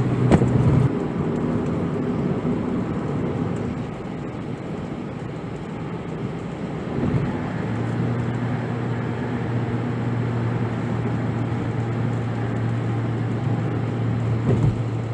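Steady road and engine noise inside a Toyota Voxy minivan's cabin, coasting down a steep mountain grade. A low engine hum sits under the tyre and wind noise, with a brief knock about a third of a second in.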